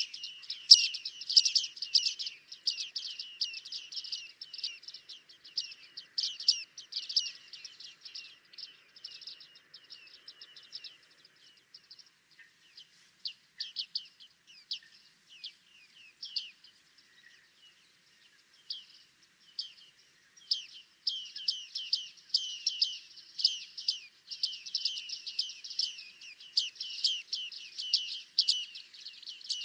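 Bearded tits calling: many short, high 'ping' calls in quick, overlapping series, thinning out in the middle and coming thick again about two-thirds of the way through.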